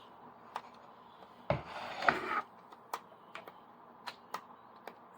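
Sharp plastic clicks and a short clatter as a vacuum cleaner is handled and its switch is worked, with no motor starting: the vacuum is not working.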